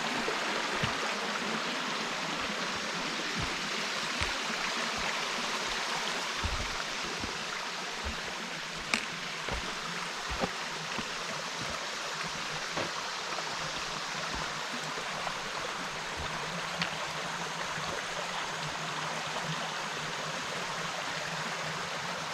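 Creek water flowing steadily over rocks, with a few soft thumps and a sharp click about nine seconds in.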